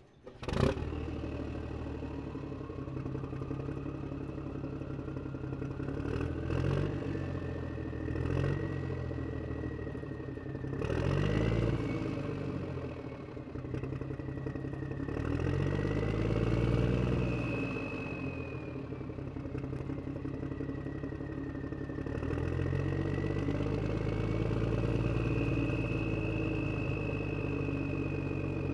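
Motorcycle engine started with a sharp catch, then running at idle with several brief throttle blips, settling into a steadier, higher run near the end. A thin whine rises and falls above the engine note.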